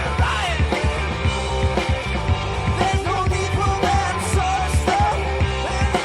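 Rock band playing live: drums and bass under a melodic line that bends up and down in pitch.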